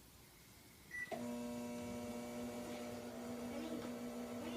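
A microwave oven gives one short keypad beep about a second in, then starts up and runs with a steady electrical hum.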